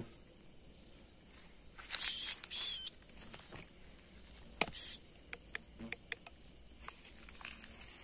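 Plastic bag crinkling in two short bursts, the first about two seconds in and lasting about a second, the second shorter, as a small caught bird is handled at the bag's mouth; scattered small clicks and taps follow.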